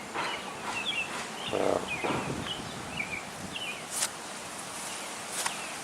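Small birds chirping repeatedly in short quick notes, with footsteps on wet ground and a brief lower-pitched call about a second and a half in.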